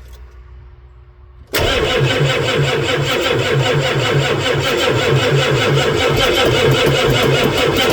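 Starter cranking a 1990 Ford E350's 7.3-litre IDI diesel engine. It cuts in suddenly about a second and a half in and turns over with an even beat, without catching: the fuel system is still full of air after the fuel filter housing was refitted.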